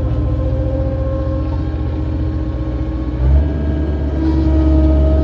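John Deere 317 skid steer loader's diesel engine running steadily. About three seconds in it is throttled up, its pitch stepping higher and running louder.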